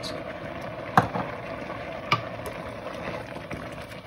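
Grated carrots in milk bubbling at a simmer in a steel pot, with sugar just added. A metal spoon knocks against the pot twice, sharply, about one and two seconds in.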